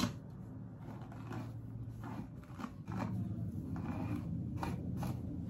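Brush strokes through long wet hair: soft, short swishes about a second apart, with a sharp click at the start. A low steady hum grows louder underneath about halfway through.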